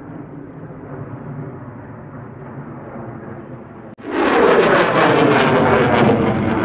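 Boeing E-7A Wedgetail's twin turbofan engines running steadily as it passes overhead. About four seconds in, an abrupt cut to a much louder, crackling jet noise from an F-35A Lightning II as it climbs.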